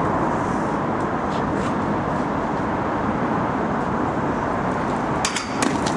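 Skateboard wheels rolling on pavement, a steady rumble, then a few sharp clacks about five seconds in as the board pops and hits the handrail.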